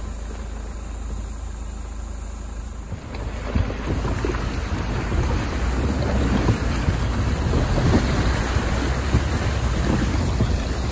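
A vehicle's engine running low, then about three seconds in the rushing, splashing wash of creek water as the vehicle drives into a shallow ford, noisier than the engine.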